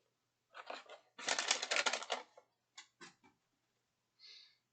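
Packaging or cards being handled: a quick run of rapid crackling clicks about a second in, a few single clicks after, and a short soft rustle near the end.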